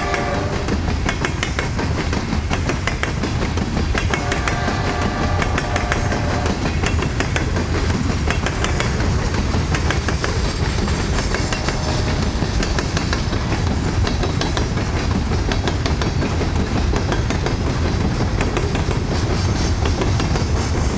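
Coal hopper cars of a freight train rolling past, a steady rumble with the wheels clicking over rail joints. A diesel locomotive's horn sounds about four seconds in, for about two seconds.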